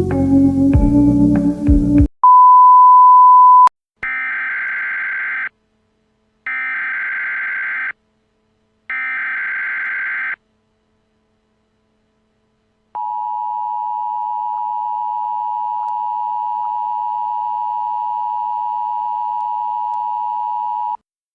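A brief stretch of soft mallet-like music cuts off, then a short loud steady beep, three buzzy Emergency Alert System SAME header data bursts of about a second and a half each, and after a pause the long EAS two-tone attention signal, held steady for about eight seconds before cutting off sharply.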